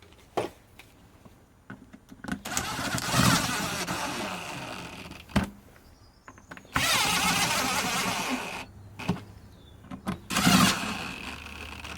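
Cordless drill-driver running in three bursts of a few seconds each, driving screws through 6 mm plywood strips into the bottom plate of a hoover bag, with a few sharp knocks in between.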